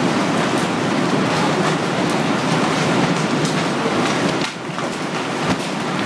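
Tornado winds blowing hard: a loud, steady rushing noise with a few scattered sharp knocks. It eases briefly about four and a half seconds in, then comes back.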